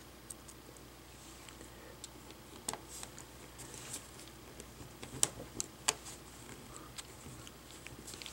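Faint scattered ticks and scrapes of a small screwdriver tip working a tiny laptop screw against the plastic casing as it is seated and turned back in, with a few sharper clicks in the second half.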